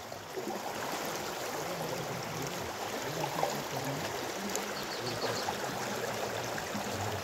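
River water flowing and trickling steadily around people standing waist-deep in it.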